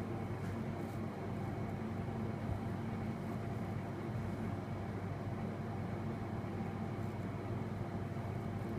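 Steady low background hum and hiss with a few faint constant tones and no distinct events.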